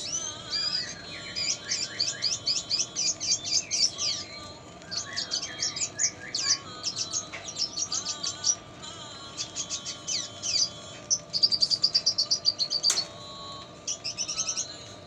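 A caged red siskin singing: a fast twittering song in phrases of rapid high chirps and sweeps with short pauses, its song filled with lovebird-style notes. Around two-thirds of the way in it delivers a fast, even trill, the loudest part, followed by a single sharp click.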